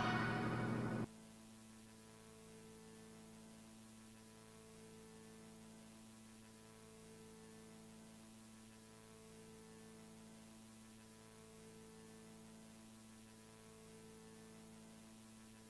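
Tail of music fading out about a second in, then a faint steady electrical hum: a stack of even low tones, one of which swells gently about every two seconds.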